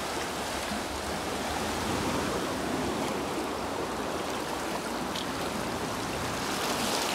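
Fast canal water rushing and churning out of the Bhadra canal tunnel into a concrete channel: a steady, unbroken rush of white water.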